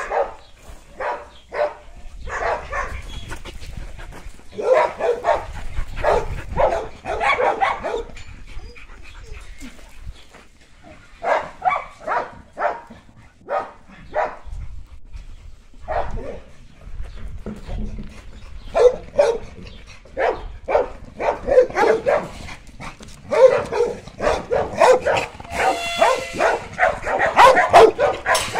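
Several dogs at play, barking and yipping in short clustered bursts with quieter gaps between, and a brief drawn-out pitched cry near the end.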